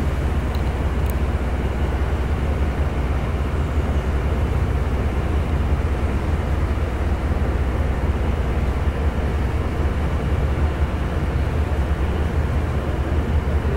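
An inland cargo barge's diesel engine runs with a steady low drone and no change in pace as the barge moves slowly through the lock chamber.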